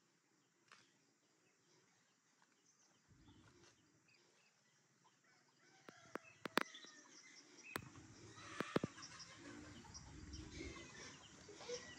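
Faint hens clucking, over near silence in the first half. A few sharp clicks and knocks from handling come in around the middle and again a little later.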